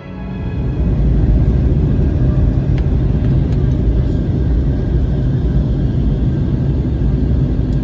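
Steady low rumble of a passenger jet in flight, heard from inside the cabin, swelling in over the first second, with a few faint clicks.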